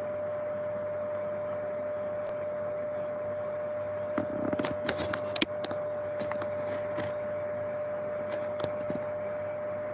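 Steady hiss with a constant tone running under it. A cluster of clicks and rustles comes about four seconds in, and a few lighter ticks come later, typical of a camera microphone being handled.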